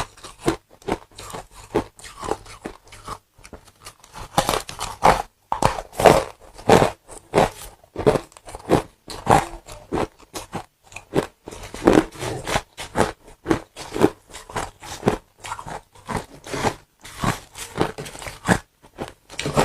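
Close-up crunching of ice and frost being bitten and chewed, a rapid run of irregular sharp crunches several times a second.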